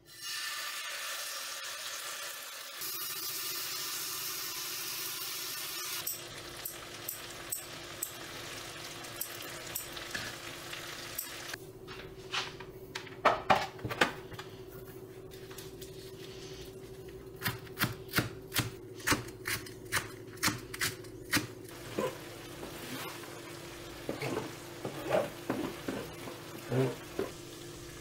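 Food sizzling as it hits a hot griddle pan for the first several seconds. Later comes a knife chopping vegetables on a cutting board: a quick, even run of about a dozen strokes lasting a few seconds, with scattered knocks and clatter of kitchen utensils before and after.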